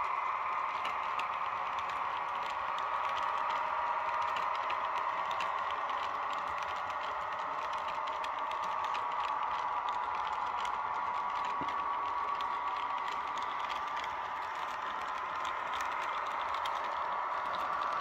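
Model train running along the layout's track: a steady whir with dense, rapid clicking and rattling of the coaches' wheels over the rails and joints.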